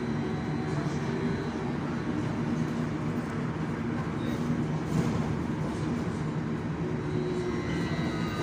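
Interior ride noise of an AKSM 32100D trolleybus moving along the road: a steady rumble of tyres and running gear with a faint even hum from the electric drive.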